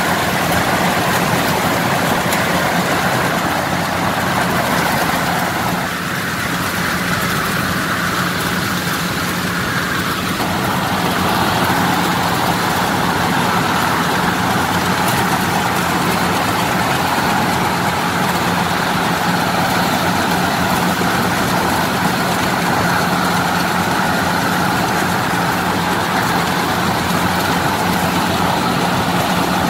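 Yanmar 82 rice combine harvester running steadily while harvesting, its engine and machinery a continuous loud drone heard from the operator's seat. The level dips slightly about six seconds in and picks up again a few seconds later.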